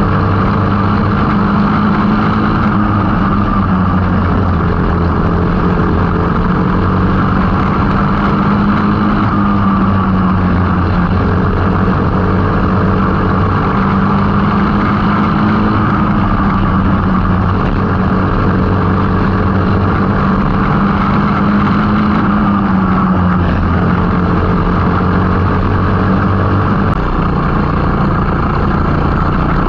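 Go-kart engine running hard, heard from on board the kart, its pitch swelling and sagging gently every few seconds as the kart goes round the oval. Near the end the pitch drops a little lower.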